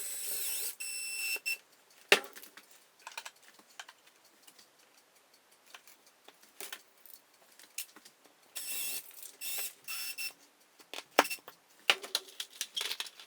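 Cordless drill/driver whining in short runs, twice: once for about a second and a half at the start and again about nine seconds in, with scattered clicks and knocks of parts being handled in between.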